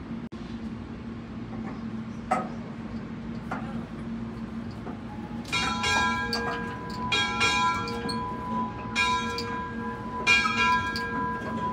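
Steam locomotive bell rung by hand, struck four times about every one and a half to two seconds from about halfway in, each stroke ringing on into the next.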